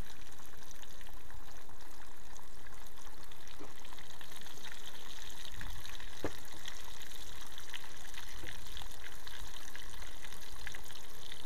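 Flounder deep-frying in hot oil: a steady sizzle with scattered small pops and crackles.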